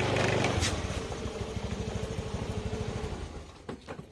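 Motor vehicle engine idling with an even low throb, fading out over about three seconds.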